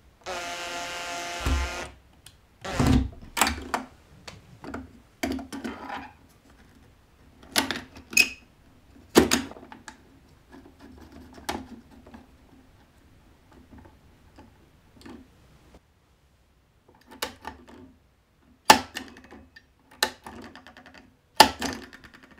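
Cordless drill driving a screw with a steady whine for about a second and a half. It is followed by a string of sharp clicks and knocks as the plastic switch box and its red hinged stop cover are handled and fitted.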